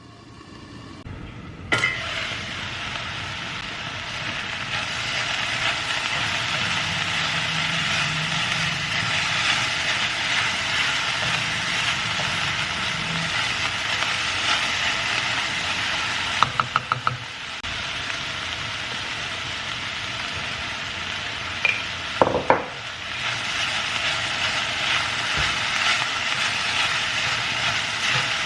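Food sizzling steadily in a hot pan, with a quick run of metal utensil taps against the pan a little past halfway and another couple of taps later on.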